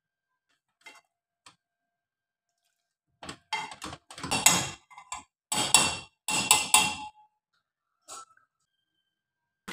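A wire potato masher mashing soft boiled bottle gourd in an aluminium pot: a run of about seven scraping, clinking strokes of metal against the pot over some four seconds, then a single light knock.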